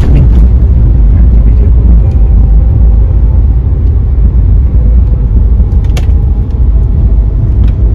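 Inside the cabin of a Daihatsu Xenia on the move: a loud, steady low rumble of engine and road noise. A single sharp click comes about six seconds in.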